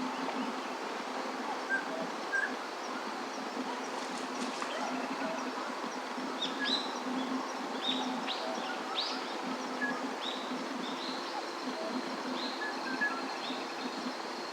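Small birds chirping: a run of short, quick, downward-sweeping calls, most of them in the second half, over a steady outdoor background hiss with a thin, steady high tone.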